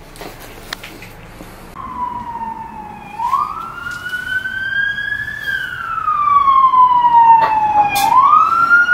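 Emergency-vehicle siren wailing, starting about two seconds in and growing louder. Its pitch climbs quickly, drifts up, then sinks slowly and climbs again near the end.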